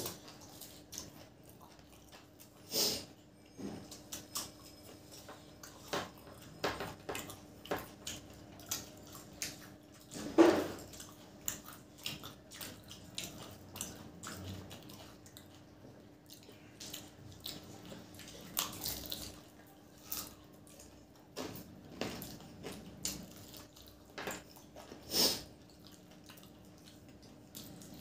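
Two people eating potato samosas dipped in tamarind chutney by hand: irregular wet chewing, bites and lip smacks, with a louder one about ten seconds in.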